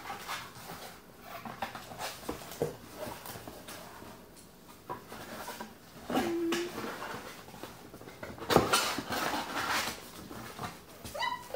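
Cardboard box being folded and handled: irregular rustling, scraping and creasing of the card, densest a little past the middle. A brief high squeak sounds near the end.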